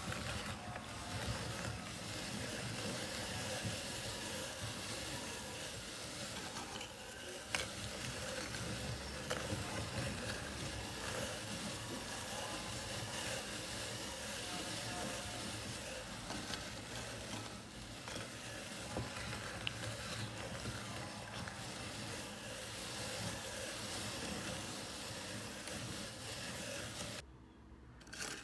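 Manual meat grinder crushing dry wheat biscuits: a steady gritty crunching and grinding as the auger turns, with scattered clicks. It stops abruptly about a second before the end.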